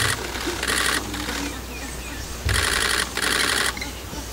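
Camera shutters firing in rapid bursts, about four bursts of half a second to a second each, with short gaps between.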